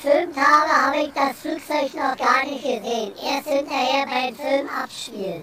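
A high-pitched voice singing a short phrase with a wavering pitch, ending on a downward slide.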